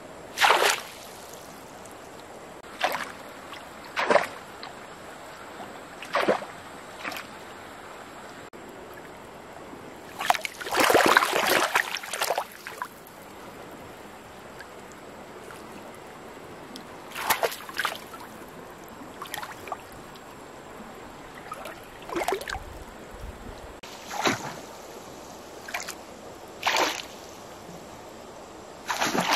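Short, irregular water splashes in shallow water among a heap of submerged ferns and branches, a dozen or so, with a longer run of splashing in the middle, over the steady rush of a stream.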